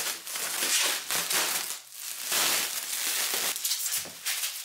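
Plastic wrapping of a newly bought carpet crinkling and rustling as it is handled, in uneven surges with a brief lull about two seconds in.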